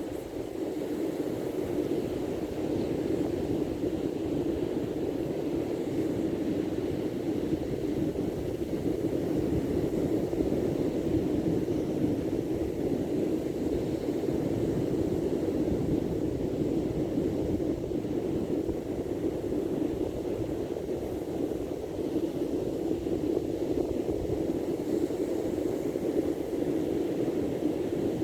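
Steady rushing noise of wind and sea surf, even and unbroken, with no clear individual wave breaks.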